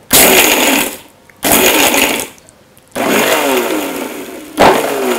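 Electric mixer grinder run in four short pulses, with its stainless steel jar crushing crisp fried, puffed edible gum (dink) into coarse pieces.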